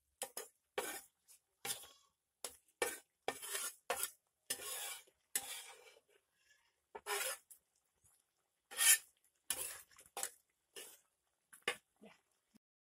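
Metal spatula scraping and knocking against a wok while stirring chicken pieces, in short irregular strokes about one or two a second, a few of them longer scrapes.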